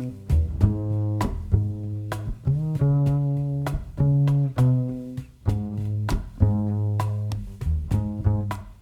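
Instrumental music: a slow bass line under sustained chords, with notes struck at a steady, unhurried pace. This is the introduction of a slow love song, before the vocals come in.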